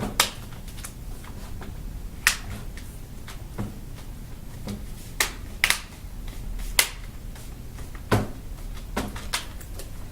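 Plastic laptop screen bezel being pressed back onto the lid, its retaining clips snapping into place with sharp clicks at irregular intervals, about nine in all.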